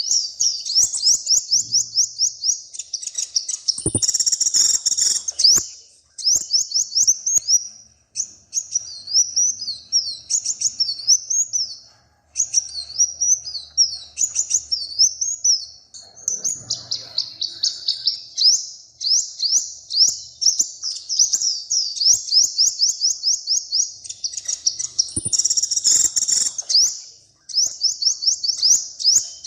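A small songbird singing almost without a break: long runs of rapid, high chirps and trills with short pauses between phrases. Twice, about four and twenty-five seconds in, there is a harsher, noisier stretch with clicks.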